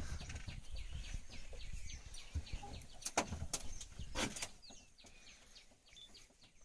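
Many wild birds calling with short, high chirps, and a few louder, sharp sounds about three and four seconds in. It grows quieter after about five seconds.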